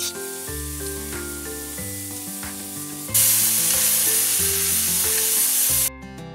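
Pressure cooker venting steam through its lid valve, lifted by hand to release the pressure: a steady hiss that turns into a much louder jet about three seconds in and cuts off suddenly near the end. Background guitar music plays underneath.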